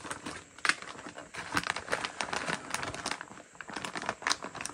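Plastic bag of soft-plastic fishing baits crinkling and rustling as it is handled and folded closed, with many irregular small crackles.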